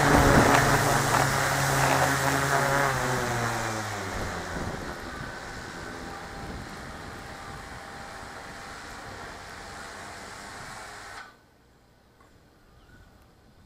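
Drone motors and propellers heard from the onboard camera, whining loudly at first, the pitch falling over the first few seconds as the drone comes down onto the roof. A quieter, steady whir follows and cuts off suddenly about eleven seconds in, as the motors stop.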